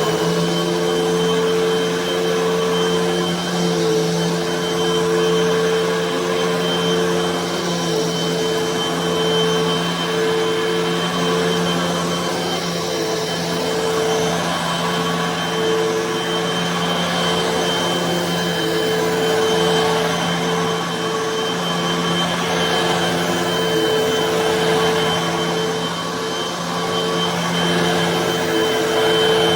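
Hoover vacuum cleaner running on carpet: a steady motor hum with a high whine over a rushing hiss, swelling and dipping a little as it is pushed along.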